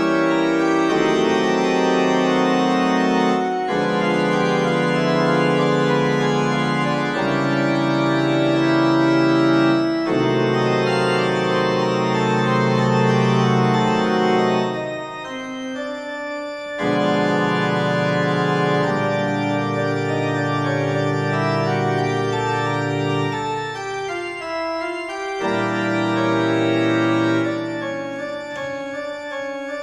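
Organ music: slow, sustained chords that change every few seconds, thinning briefly about halfway through.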